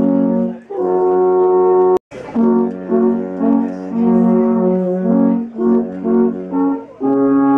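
Several alphorns played together in harmony: a slow tune of held notes and short phrases. The sound cuts off abruptly for a moment about two seconds in, then the tune carries on.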